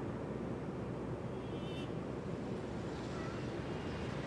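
Steady airliner cabin noise in flight: an even rumble and hiss of engines and airflow.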